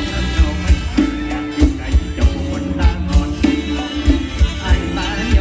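Live Isan mor lam band music: a wavering melodic lead over a steady drum beat with high percussion.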